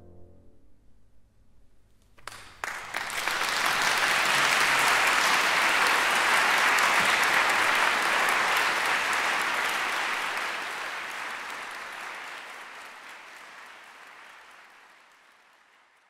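An audience applauding: after a brief hush following the last note of the music, the clapping breaks out about two seconds in, holds full and dense, then fades gradually away over the last several seconds.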